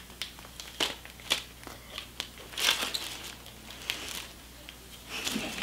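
Ice cream cone paper wrappers crinkling and rustling in the hands, as short scattered crackles and clicks with a couple of longer rustles.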